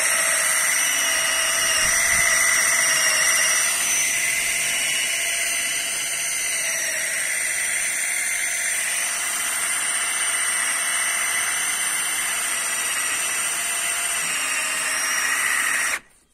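Bosch cordless drill running steadily at full speed in an awning's crank gearbox, winding the awning fabric in. It makes a continuous whine that cuts off abruptly near the end.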